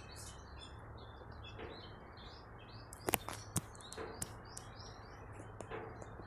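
Small birds chirping steadily, many short high chirps, over a low steady hum, with two sharp clicks about three seconds in.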